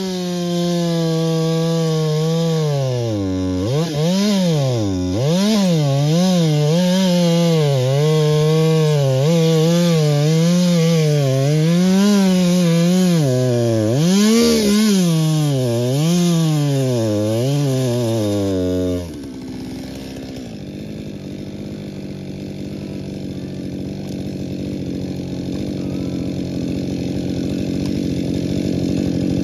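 Husqvarna two-stroke chainsaw cutting through wood, its engine note dipping and recovering again and again under load. About two-thirds of the way in, the loud engine note cuts off suddenly and a lower, steadier, rougher sound takes over and slowly grows louder.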